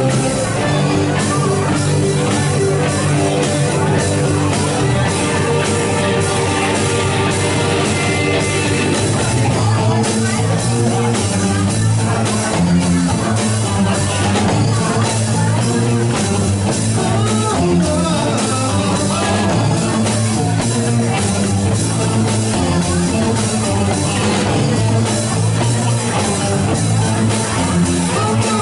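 Live rock band playing loudly and steadily: drum kit, electric guitar, bass and keyboards together.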